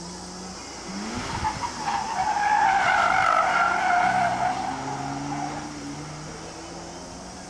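Subaru BRZ's tyres squealing for about four seconds as the car turns hard around the cones, loudest midway, over its flat-four engine running with its pitch rising and falling.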